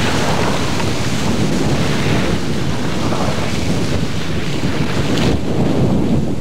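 Wind buffeting the camcorder's microphone: a loud, gusty rush of low noise.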